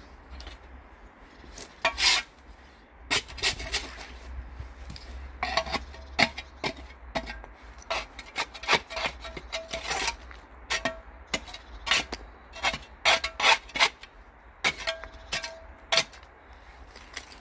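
A hand trowel scraping soil and grit off the edge of a stone grave slab in short, irregular strokes, one or two a second. Some strokes carry a brief ringing squeak of the blade on stone.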